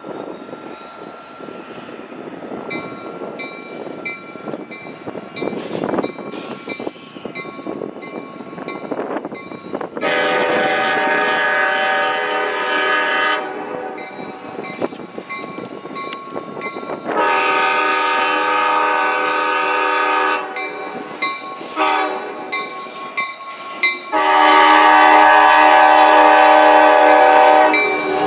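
Norfolk Southern GP60 locomotive horn sounding the grade-crossing signal: two long blasts, a short one, then a long one held as the locomotive reaches the crossing. A crossing bell dings steadily underneath.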